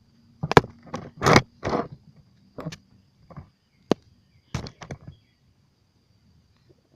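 Chalk bomb, a squishy chalk-filled bag, being thrown down hard onto a driveway again and again: a series of sharp, irregular slaps and thuds that stop about five seconds in.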